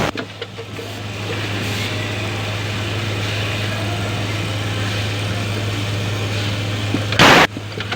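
Automatic rivet-setting machine running with a steady hum, and a short loud burst right at the start and again about seven seconds in as its press strokes.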